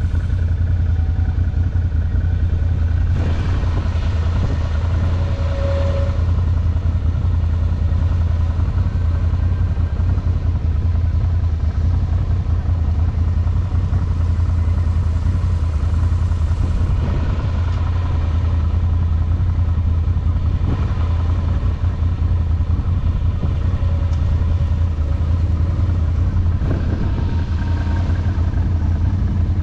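Off-road ATV engine running steadily under way, a deep continuous drone.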